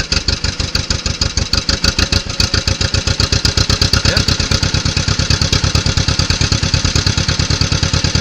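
1955 John Deere 40S two-cylinder tractor engine running while the hand throttle is worked: its firing beat quickens over the first couple of seconds and then holds at a steady, faster pace.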